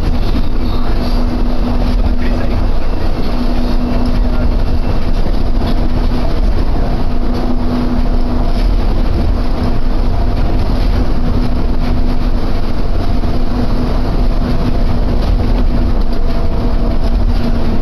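Inside a Rokko Liner automated people-mover car running along its guideway: a steady rumble of rubber tyres with a constant hum.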